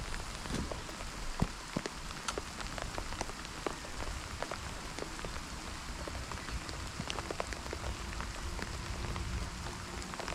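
Steady rain falling, with many individual raindrops ticking sharply close to the microphone.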